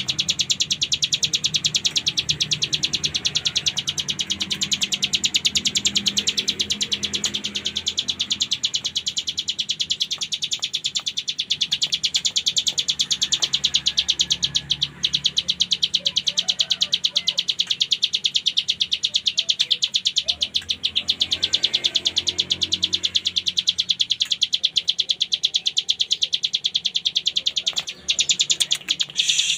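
A ciblek gunung (a small prinia songbird) singing its 'ngebren' song: a fast, unbroken, high-pitched rattling trill, briefly broken a couple of times near the end.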